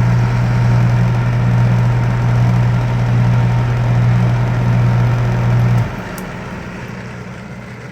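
Dehumidifier's condensate pump purging collected water, a loud steady hum that cuts off suddenly about six seconds in, leaving a quieter steady running noise.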